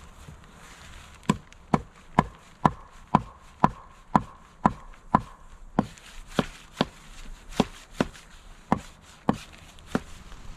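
Hammer blows on the upright wooden posts at a log shelter's entrance: a steady run of about seventeen strikes, roughly two a second, starting about a second in.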